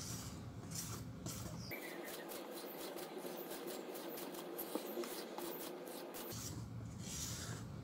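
Wire whisk stirring whipped egg whites into pandan cake batter in a stainless steel bowl: faint soft scraping with many small clicks of the wires against the bowl.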